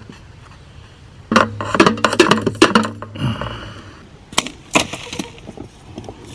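Hard plumbing fittings and tools being handled: a loud stretch of clattering and clinking with a low hum under it, then two sharp clicks about a second apart.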